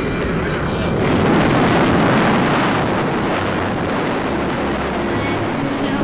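Loud, steady rush of wind and aircraft engine noise through the open jump door of a plane in flight, swelling slightly about a second in. Music starts to come in near the end.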